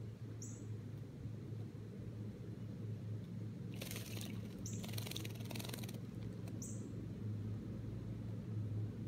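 Northern cardinal bathing in a shallow aluminium-pan birdbath, splashing water in two bursts around the middle, the second lasting about a second and a half. Three short, high, downward-sliding bird chip notes sound over a steady low hum.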